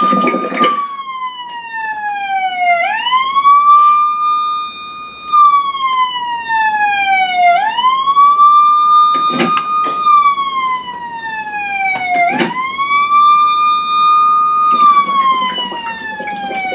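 Siren wailing in a repeating cycle, about every five seconds: a quick rise to a held high note, then a slow slide down before it rises again. A few sharp knocks sound over it.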